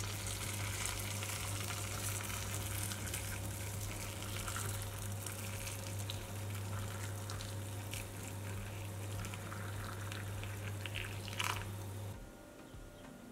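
A thin stream of boiling water pouring steadily onto dry white beans in a stainless steel bowl, splashing and trickling as the bowl fills, over a low steady hum. The pouring stops near the end.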